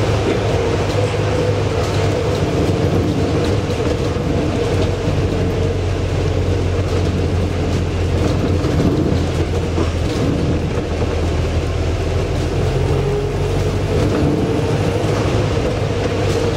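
Interior running noise of a Volvo B5LH hybrid double-decker bus under way: a steady low drivetrain hum with a higher steady whine on top, over road noise.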